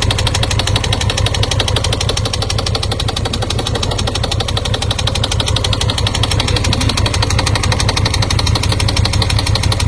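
Motorcycle engine running steadily at road speed with a rapid, even pulse, under a constant rushing hiss.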